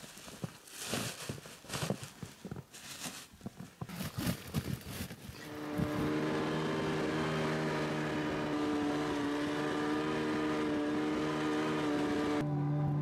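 Plastic bags rustling and thudding, with steps in snow, as heavy bags are handled; about five and a half seconds in, a snowmobile engine takes over, running at a steady, unchanging pitch while riding.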